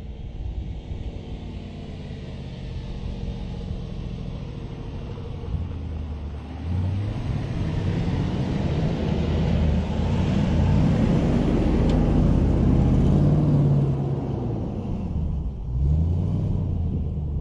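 Range Rover Sport's supercharged 5.0-litre V8 driving through deep sand under throttle. The engine note rises from about a third of the way in and is loudest as the SUV passes close by. It drops briefly near the end, then climbs again on a fresh burst of revs.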